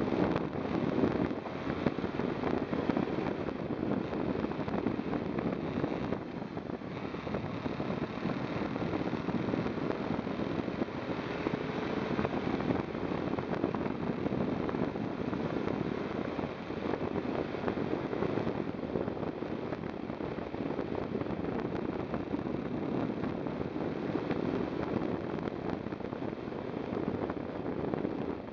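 Steady wind rush over the microphone of a moving motorcycle, with the V-twin engine of a KTM 990 SMT running underneath.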